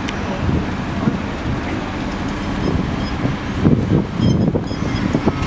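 Class 73 electro-diesel locomotive running on its diesel engine as it draws a train slowly away, a steady low engine drone that turns louder and rougher about four seconds in.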